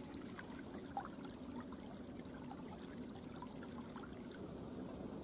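Faint, steady trickle of water running through a shallow stream outlet, with a few small ticks.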